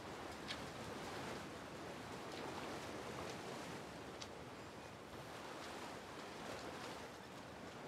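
Faint, steady rush of wind and distant surf, with a few faint short ticks.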